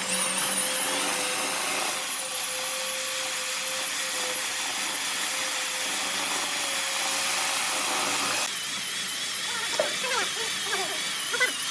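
Electric power tool motor running steadily with a high whine whose pitch wavers; the sound drops and changes about eight and a half seconds in.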